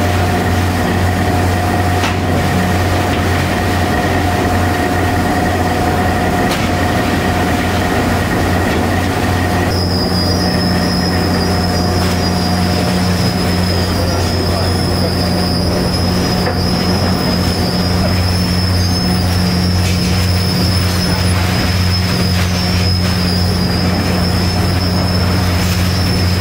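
Heavy industrial feed machinery with a gear drive running continuously and loudly: a steady low hum under a high, constant squealing whine, which jumps to a higher pitch about ten seconds in.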